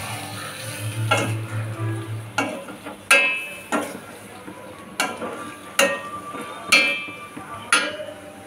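Slotted metal spatula stirring prawn masala in a stainless steel wok, scraping and knocking against the pan about once a second, each knock ringing briefly, over the sizzle of the frying.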